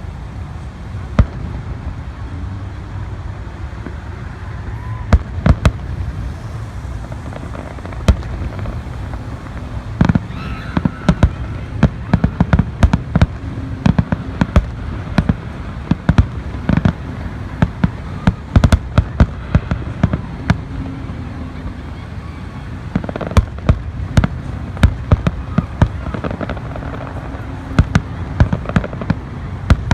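Fireworks going off: many sharp bangs and crackles, scattered at first, then in quick runs through the middle and again near the end, over a steady low rumble.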